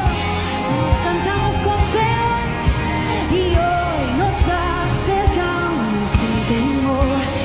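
Christian worship song: a melodic singing voice over band accompaniment with a steady drum beat.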